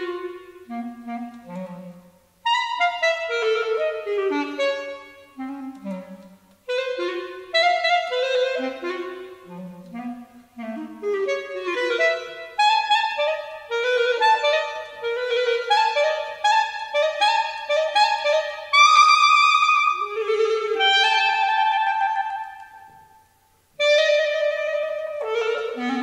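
Solo clarinet playing fast, darting phrases of short notes that leap up and down, figures meant as bird calls, with brief breaks between phrases. A loud held high note comes about two-thirds of the way through.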